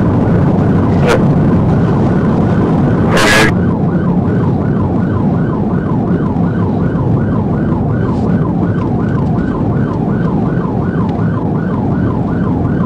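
Police patrol car's siren on the rapid yelp setting, about four quick sweeps a second, starting about three and a half seconds in after a short burst of noise. It is heard from inside the cruiser over a steady low rumble of engine and road noise.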